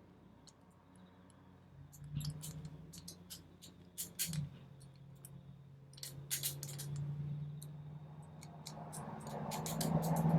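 Small metallic clicks of a four-wheel combination padlock being worked by hand, its number wheels turned and jiggled. The clicks come in irregular clusters starting about two seconds in.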